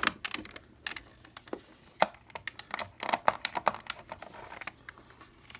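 Irregular small clicks and taps from the plastic case parts of a Copal flip clock being handled and pushed into place during reassembly, with a sharper snap about two seconds in and a quick cluster of clicks past the three-second mark.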